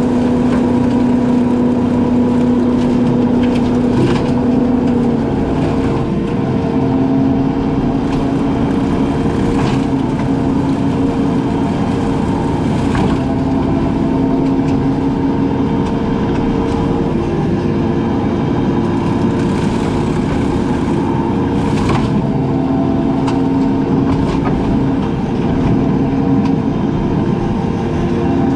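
A brush-cutting machine's engine running steadily under load, its pitch shifting a little now and then, with a few sharp cracks of brush and wood being broken.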